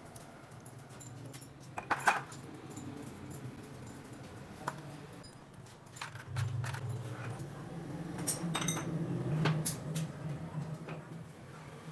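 Metal motorcycle front-fork parts clinking and knocking as they are handled. Near the end a cluster of sharp clinks as a steel rod is worked inside the fork's bottom tube against the oil seal. A low steady hum comes in about halfway.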